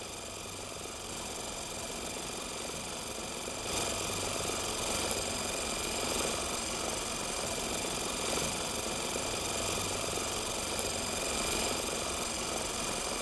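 Super 8 cine camera running through a continuous take: a steady mechanical whirr of its motor and film transport, a little louder from about four seconds in.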